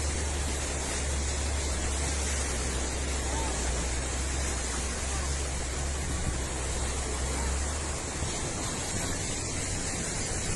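Steady rushing noise of strong wind, buffeting the microphone with a low rumble that eases about eight seconds in.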